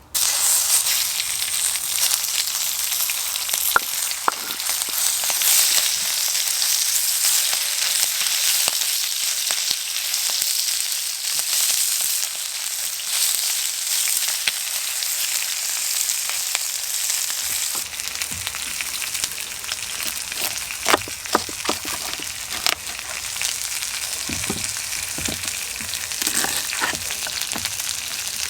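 Stir-fry sizzling hard in a hot pan: a dense, steady hiss with scattered crackles and pops. About two-thirds of the way in the hiss eases a little and sharper clicks and knocks come through.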